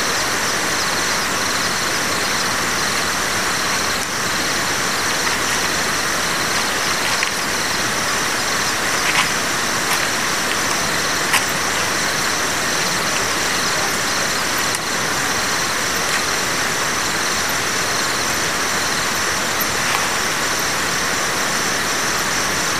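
Steady, even outdoor background hiss, with a few faint clicks about halfway through.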